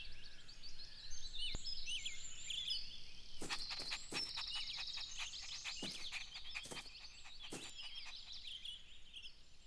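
Outdoor garden ambience with birds chirping and twittering, a fast high trill in the middle, and a scatter of soft taps through the middle stretch.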